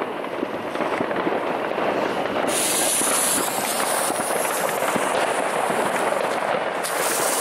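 Weco Elysium 16-shot, 14 mm consumer firework battery firing: a dense, unbroken run of crackles and pops. A strong hiss comes in about two and a half seconds in and slowly fades, and another starts near the end.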